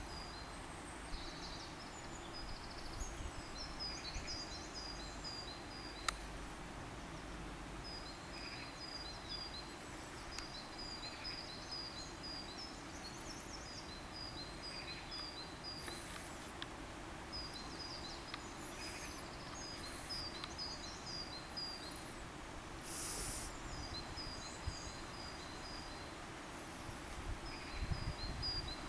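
A small songbird singing repeated runs of short, high chirping notes every few seconds over a steady background hum of outdoor noise. A brief hiss comes about two-thirds of the way through.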